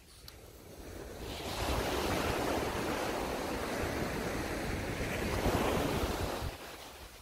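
Surf breaking and washing up the beach, the rush of water swelling about a second in and fading away near the end, over a low rumble of wind on the microphone.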